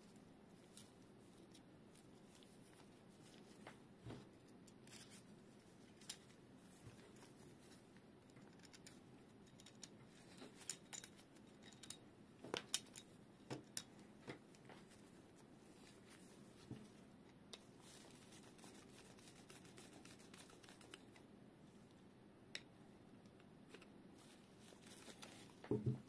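Quiet, scattered clicks and taps of small metal and plastic parts being handled: a coiled spring and a brass pin being fitted into a folding tripod gas-stove adapter. The clicks come thickest about halfway through, with a few more near the end.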